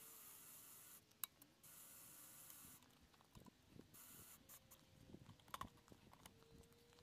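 Near silence: faint rustling hiss and a few soft clicks and knocks about five to six seconds in, from someone handling the front of an ATV.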